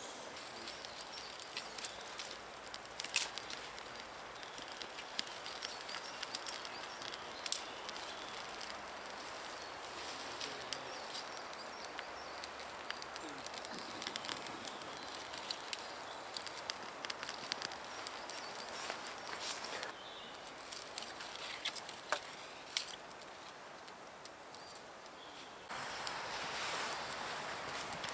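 Quiet woodland ambience: a faint steady hiss with scattered light clicks, rustles and crackles. The background changes abruptly twice, near two-thirds of the way through and again shortly before the end.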